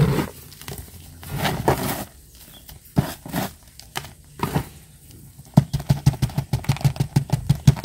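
Granular fertilizer and coarse planting medium being added by hand to a small plastic plant pot: light rustling and irregular clicks, then a quick run of small clicks about seven a second in the second half.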